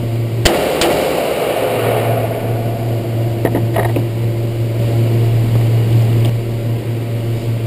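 A single shot from a Glock 22 .40 S&W pistol about half a second in, over the steady low hum of the indoor range's ventilation. A few faint clicks come around the middle.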